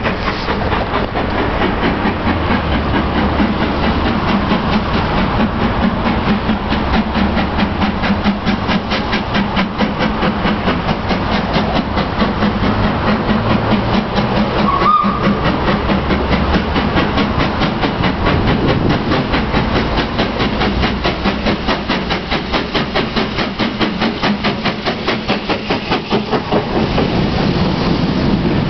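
No. 4, an LMS NCC WT class 2-6-4 tank steam locomotive, working hard up a gradient with a rapid, even beat of exhaust chuffs as it approaches and passes under. Near the end its coaches rumble and clatter by on the track.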